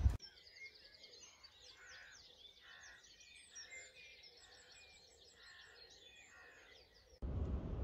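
Faint birdsong: several small birds chirping and whistling at once, with many short overlapping calls. Near the end it cuts suddenly to steady road noise inside a moving car.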